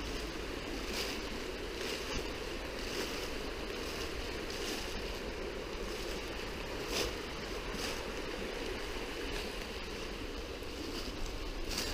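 Steady rush of a flowing river, with footsteps in dry leaf litter about once a second.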